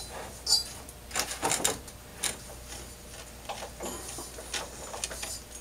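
Sanding belt being handled and draped over a wooden spar on a spar lathe: irregular rustles, scrapes and light clicks, busiest between about one and two and a half seconds in, over a faint steady low hum.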